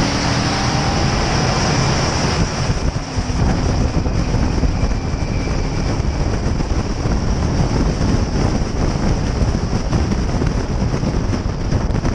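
Lockheed U-2's jet engine running with a steady roar and a high whine, mixed with wind rushing over the microphone.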